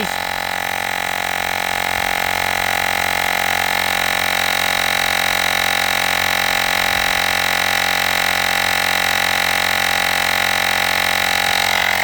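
Olgeo M7 portable air compressor running steadily under load, a constant motor-and-pump drone with a high whine, while it inflates a car tyre.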